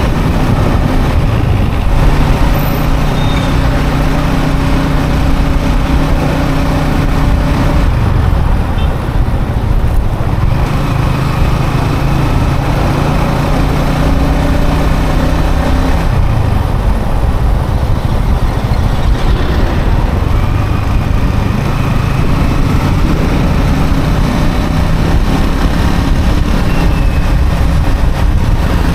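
Yamaha XSR 155's single-cylinder engine running under way, heard from the rider's seat over a steady rush of wind and road noise. Its note holds a steady pitch, then changes about eight and again about sixteen seconds in.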